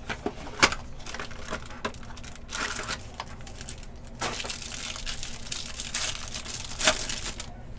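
Hands opening a Panini Select hanger box of football cards and unwrapping the plastic-wrapped card pack inside: irregular crinkling and tearing of the wrapper, with a few sharp clicks as the cardboard box is handled.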